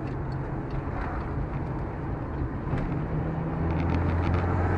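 Car engine and road noise heard from inside the cabin while driving, a steady low hum. A lower engine note comes in and the sound grows louder about three and a half seconds in.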